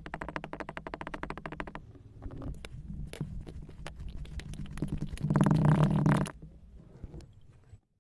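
Kinetic sand being worked close up: a rapid, gritty crackle of many tiny clicks, then scattered single crunches, then a louder, fuller crunch lasting about a second that starts about five seconds in.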